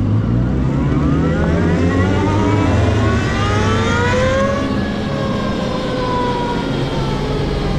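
Energica Ego electric motorcycle's drivetrain whining, rising steadily in pitch as it accelerates for about four seconds, then levelling off and dropping a little as it eases off, over a low rumble of wind and road noise.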